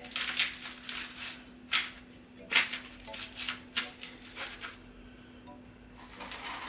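Slotted spatula scraping along an aluminium foil pan as Doritos nachos are lifted out, the chips crackling and crunching: a run of short scraping, crinkling strokes, a lull about four and a half seconds in, then more near the end. A steady low hum runs underneath.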